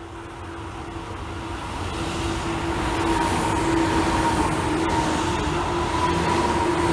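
Tobu 9000 series electric commuter train approaching and running past, growing louder over the first three seconds and then holding steady. A steady two-note whine rides over the running rumble.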